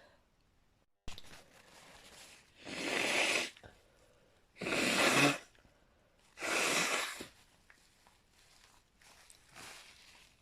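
A person blowing their nose hard three times, each blow lasting about a second and coming about two seconds apart, with fainter blowing near the end.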